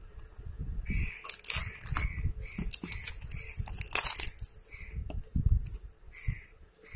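Plastic shrink-wrap film on a phone box being snipped with scissors and torn off, crinkling most densely from about one second in to about four seconds in, with the box knocking and rubbing as it is handled.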